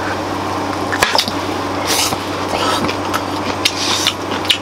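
Eating from a hotpot: a few light clicks of utensils and a short rustle over a steady low hum.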